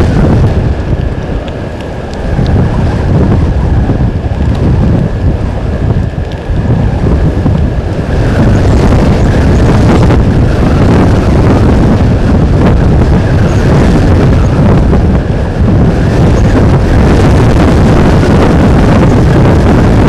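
Strong wind buffeting the microphone: a loud, gusty low rumble that dips for a moment about two seconds in.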